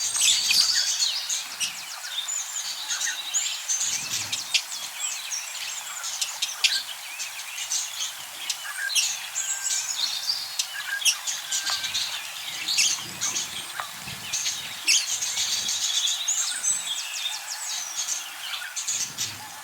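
A group of budgerigars chattering: many quick, high chirps and short warbles overlapping one another.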